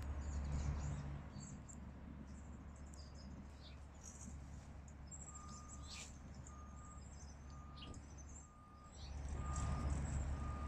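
Outdoor ambience of a steady low rumble, louder at the start and again near the end, with faint bird chirps. From about halfway through, a single-pitched electronic beep repeats six times, about a second apart.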